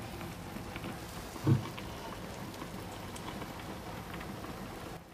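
Food sizzling in a frying pan, a steady hiss with small scattered pops, and one short thump about a second and a half in.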